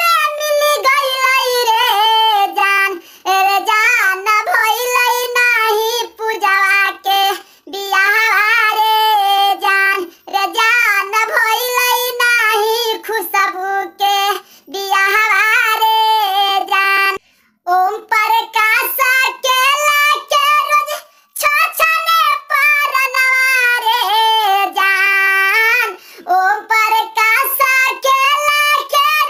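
A high-pitched, chipmunk-like cartoon-cat voice singing, phrase after phrase with short breaks between them.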